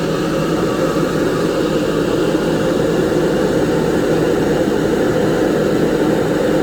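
Steady, loud rush of air from the grill vent's exhaust fan, drawing air down through the vent, heard close up inside the vent.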